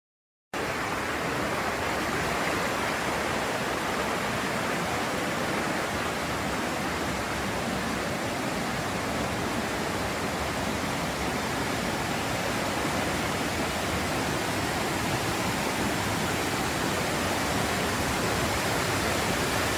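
Waterfall and a stream cascading over small weirs: a steady rush of falling water that cuts in abruptly about half a second in.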